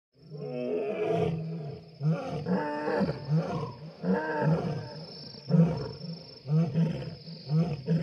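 Lion roaring: a long opening call, then a series of shorter roars and grunts about once a second. A steady high-pitched whine runs behind them.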